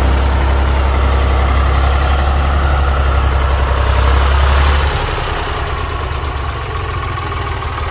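Ford 4610 tractor's three-cylinder diesel engine running as it pulls a disc harrow through paddy soil. Its deep, steady drone drops and grows quieter about five seconds in.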